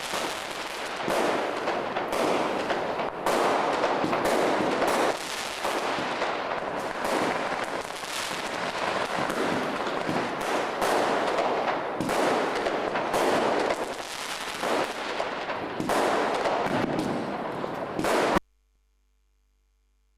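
Fireworks and firecrackers going off in rapid, overlapping bangs and crackles. The sound cuts off suddenly near the end.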